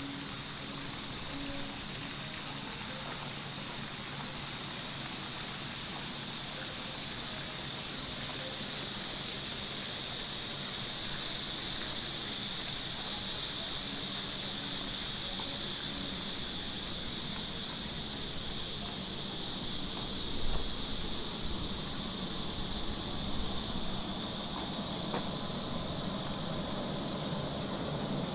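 Chorus of cicadas making a steady, high-pitched hiss that swells to its loudest about twenty seconds in, then eases off.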